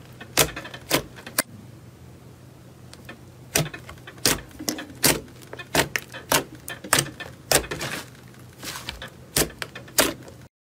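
A hand squeezing and kneading thick slime, giving irregular sharp pops and crackles, several a second in clusters. The sound cuts off abruptly near the end.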